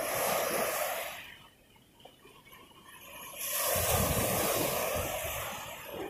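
Ocean surf. A wave washes in and fades to a lull about a second and a half in, then the next wave breaks with a low rumble from about three and a half seconds in.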